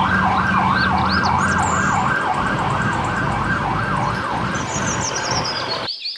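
Police car siren in a fast yelp, sweeping up and down about twice a second over a low traffic rumble. It cuts off abruptly near the end.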